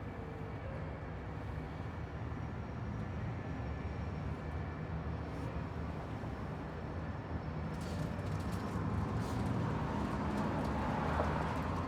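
Roadside traffic: a steady low engine rumble, with a vehicle passing that swells to its loudest near the end.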